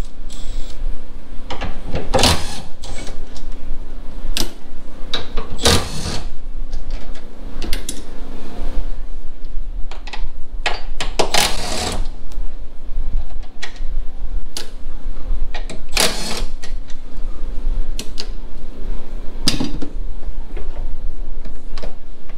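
Cordless electric ratchet running in several short bursts, loosening the strut tower brace bolts, with the longest run about a second long near the middle.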